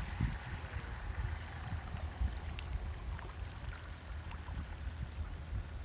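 Fast brushless RC offshore boat, an 8S Navicraft Adrenaline, running across a lake at a distance. It is a faint hiss of motor and hull on the water, under an uneven low rumble, with small scattered clicks and splashes.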